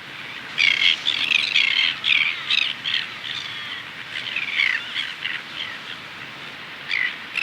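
Greater crested terns calling: a quick run of short, repeated calls starting about half a second in, thinning out, with a single last call near the end, over a steady faint background hiss.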